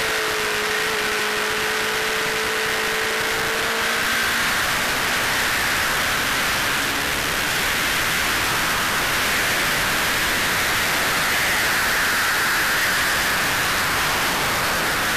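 Steady rush of wind over a motorcycle-mounted camera's microphone at track speed, with the Honda CBR600RR's inline-four engine running underneath. A steady engine tone is audible for about the first four seconds, then sinks into the wind noise.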